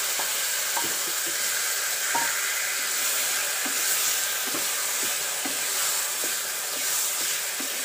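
Hot oil and tempering sizzling steadily in a kadai as freshly pounded tomato-mint chutney is added and stirred in with a wooden spatula, with small knocks and scrapes of the spatula against the pan.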